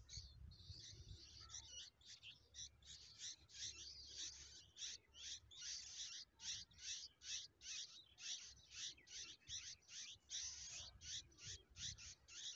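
Bulbul nestlings begging for food: a fast, steady run of short, high, scratchy calls, about three a second, from hungry chicks gaping in the nest.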